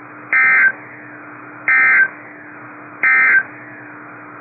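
Three short Emergency Alert System data bursts from a NOAA Weather Radio broadcast, about 1.4 s apart, each lasting about a third of a second. This is the end-of-message code that closes the warning. Steady receiver hiss with a faint hum runs between the bursts.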